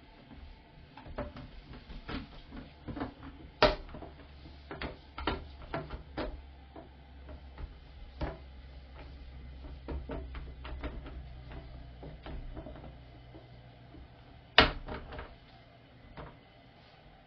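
A series of light clicks and knocks, with two sharp, louder clacks about three and a half seconds in and near the end, over a low steady hum that stops at the second clack.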